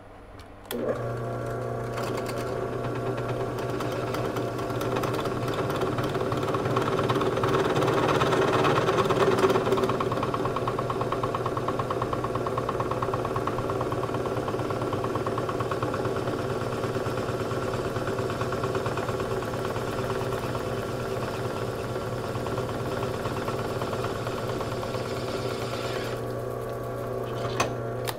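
Benchtop drill press motor running while a 5/8-inch bit enlarges a pilot hole. It starts about a second in, gets louder and rougher around 8 to 10 seconds in as the bit cuts, then runs steadily and stops near the end.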